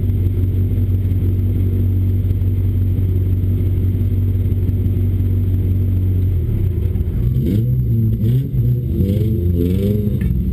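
Autocross race car's engine idling steadily, heard from inside the caged cabin. About seven seconds in, the engine note starts to waver, rising and falling in short swells.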